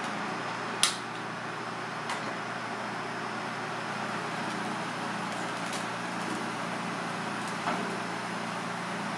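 Steady rushing noise of a restaurant kitchen, with a few sharp clicks and knocks of kitchen utensils; the loudest knock comes about a second in.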